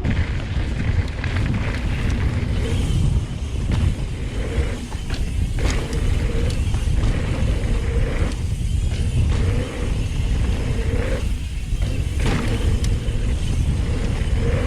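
Wind rushing over the microphone and the rumble of knobby mountain bike tyres on a dirt jump trail, with scattered knocks and clatter from the bike.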